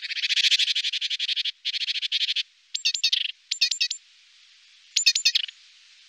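Great tit calling: two bursts of a harsh, rapid rattle in the first two and a half seconds, then three short groups of quick, thin, high notes.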